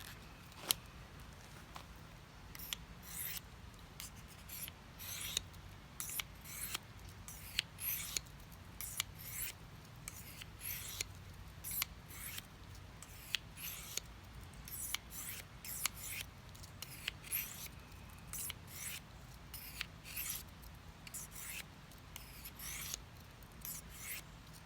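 Stainless steel large blade of a Victorinox Fieldmaster Swiss Army knife being stroked across a Smith's diamond sharpening stone: short scraping strokes, roughly one and a half a second, repeated for about twenty seconds. A single sharp click comes just before the strokes begin.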